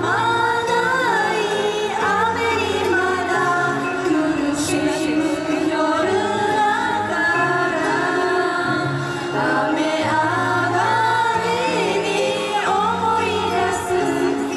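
Mixed group of young men and women singing together into microphones, a choir-style group song over instrumental accompaniment with sustained low bass notes.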